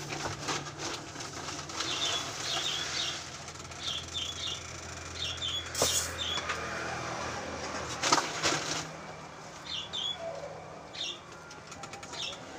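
Small birds chirping in short repeated clusters over a steady low hum, with a few knocks and rattles from things being handled, the loudest about eight seconds in.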